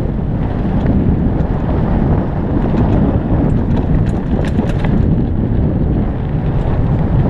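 Wind buffeting a helmet-mounted camera's microphone during a fast mountain-bike descent on a dirt trail. Under it is a steady low rumble of tyres on the dirt, with a few sharp rattling clicks from the bike in the middle.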